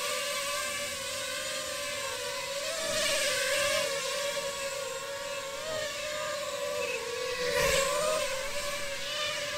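FPV quadcopter's motors and propellers whining steadily in low flight, the pitch wavering slightly as the throttle moves. The whine swells about three seconds in and again near the end.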